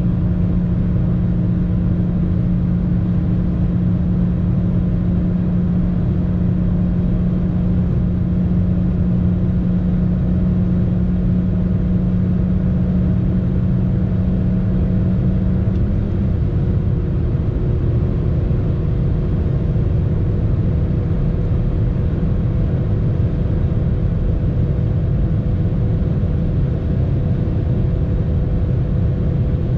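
Kia cee'd's 1.4-litre four-cylinder petrol engine running at high, steady revs in top gear near top speed, heard from inside the cabin over a dense low road rumble. About halfway through, its steady drone shifts and becomes less distinct.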